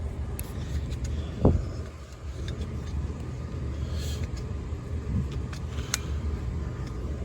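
90% Amana gas furnace running steadily with a low hum while it fails to light, with a few light clicks and a knock about a second and a half in. The three flashes on its control point to a pressure-switch fault, which the technician is pretty sure of.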